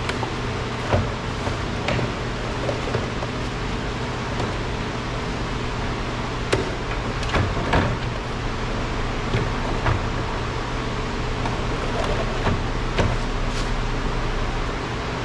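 Scattered clicks and knocks of a plastic car door trim panel and its parts being handled, with a small cluster of knocks about halfway through, over a steady hum.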